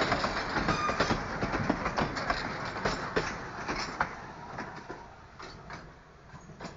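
Vintage passenger coaches of a steam-hauled tourist train rolling past, their wheels clattering over the rail joints in quick irregular clacks. The clatter fades over the last few seconds as the last coach moves away.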